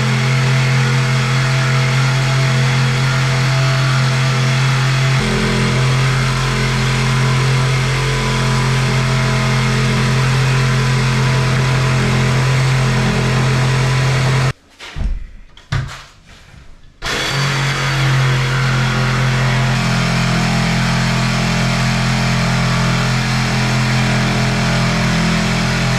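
Electric power tool motor running at a steady speed, used in cutting the cat flap hole in a fire door. About 15 seconds in it stops, gives a couple of short trigger blips, and runs again from about 17 seconds.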